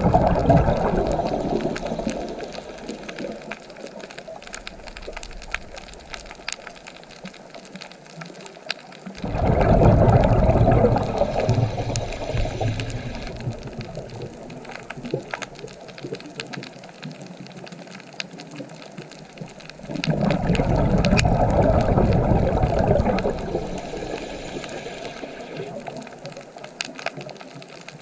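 Ocean waves breaking on the shore about every ten seconds. Each one surges in suddenly and then washes out, fading over several seconds with fine crackling as the water draws back; another wave builds near the end.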